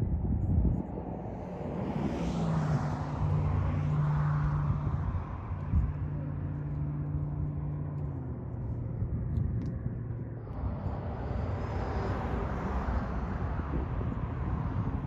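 Engine noise: a steady low hum that lasts most of the first ten seconds, over a constant outdoor rush of noise.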